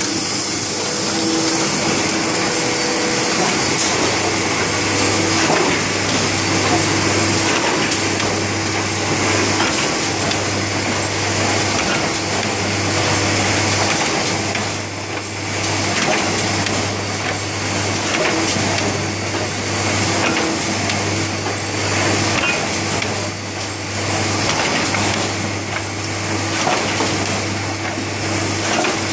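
Stahl BL 200 hardcover book production line running, a steady mechanical clatter and whir. From about seven seconds in, a low hum switches on and off in a regular cycle about every second and a half, in step with the machine's working stroke.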